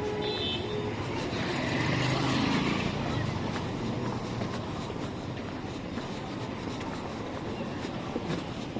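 Street traffic noise: a vehicle passes close by, swelling and fading about two to three seconds in, over a steady background of street noise.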